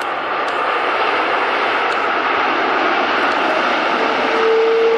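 Airbus A330 jet airliner touching down and rolling out: steady jet engine noise that grows slightly louder through the rollout. A steady whine comes in about four seconds in.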